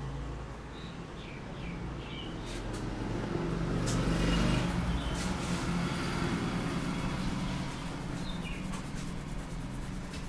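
Street traffic: a motor vehicle's low engine rumble swells, loudest about four seconds in, then eases off, with a few short bird chirps and scattered clicks.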